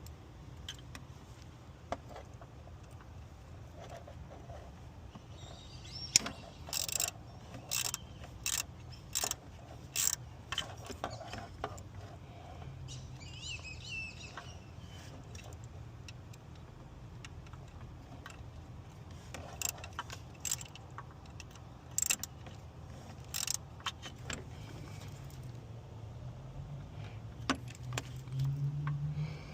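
Hand tools clicking and clinking on metal in clusters while coolant hoses and their clamps are being worked on, over a low steady hum.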